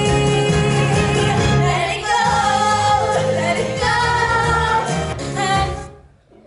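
A song with singing over an instrumental accompaniment, fading out near the end.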